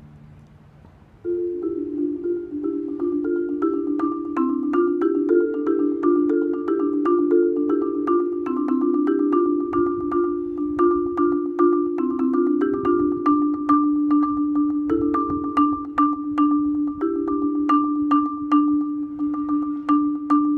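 Marimba played with four yarn mallets. After a brief lull of fading notes, a fast pattern starts about a second in: low notes shifting underneath a single high note struck over and over.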